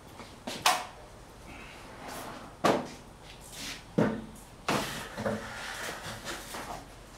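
A wooden 2x4 deck frame knocking and scraping as it is lifted off sawhorses and tipped upright on end. There are four sharp wooden knocks, with rubbing and shuffling between them.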